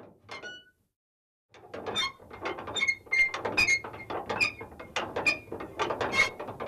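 Irregular metallic clicking and clattering, many clicks with a short ringing ping, from a small mechanism. A brief cluster of clicks comes at the start, then a dense run begins about a second and a half in.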